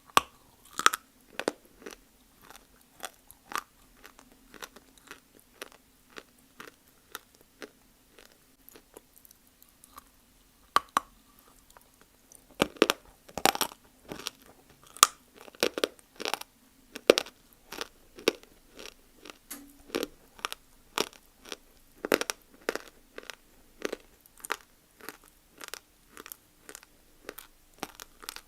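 Multani mitti (Fuller's earth clay) being bitten and chewed close to the microphone: a run of crisp crunches about two a second, louder and more frequent from about halfway through.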